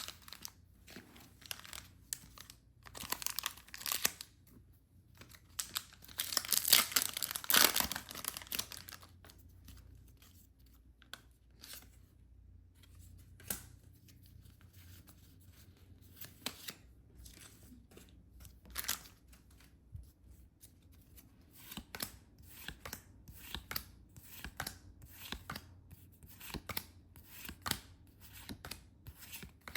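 Packaging being torn open and crinkled by hand, loudest for a couple of seconds about six seconds in, followed by a long run of light clicks and taps.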